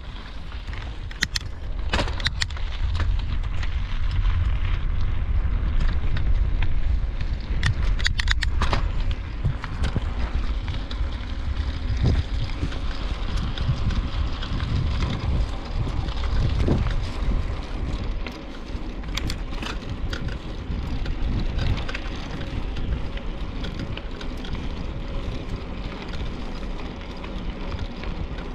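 Wind rumbling on the microphone while riding a bicycle, with a few scattered clicks and rattles.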